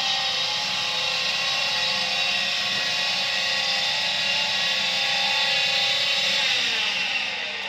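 Combustion-air fan of a Viessmann Vitodens 100 condensing gas boiler spinning at high speed with a steady multi-tone whine during start-up, just after being dismantled and cleared of condensate water. Near the end its pitch glides down and it gets quieter as the fan slows.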